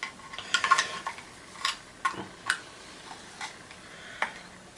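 Irregular clicks and clinks of a hand tool knocking and prising against the hard plastic casing and metal parts of an old vacuum cleaner being broken open, some strikes ringing briefly.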